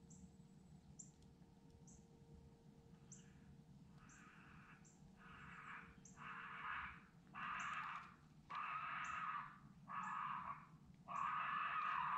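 Raccoon squalls: raspy cries about a second long with short gaps, starting faint a few seconds in and growing louder. A faint high chirp repeats about once a second throughout.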